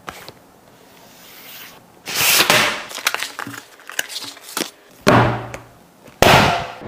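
Tablet packaging handled close to the microphone during unboxing: three loud swishes of the box and wrapping sliding and rustling, with scattered sharp clicks and taps between them.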